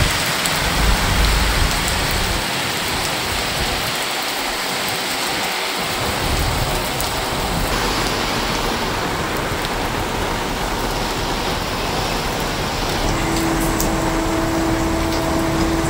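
Heavy rain pouring onto a wet paved road, a steady hiss of falling drops. Near the end a steady pitched tone sounds for about three seconds.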